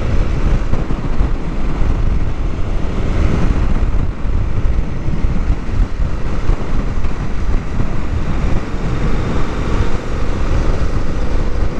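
Motorcycle riding at steady speed: wind rushing and buffeting over the camera microphone, with engine and tyre noise underneath.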